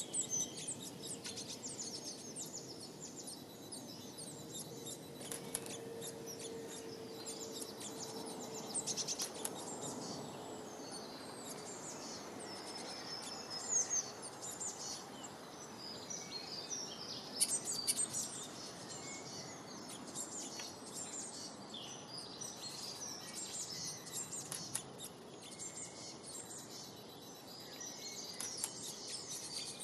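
Small birds chirping with rapid, high twittering calls over a steady background hiss. A faint steady hum sounds for a few seconds in the first third.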